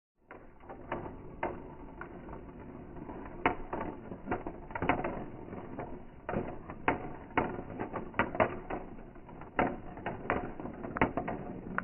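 Marbles rolling and clattering along a plastic marble-run track, with irregular clicks and sharper knocks as they strike the track's rails and one another.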